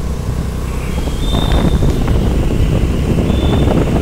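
Wind buffeting the microphone over the steady engine and tyre noise of a moving two-wheeler, heard from the pillion seat. Two short high beeps sound about two seconds apart.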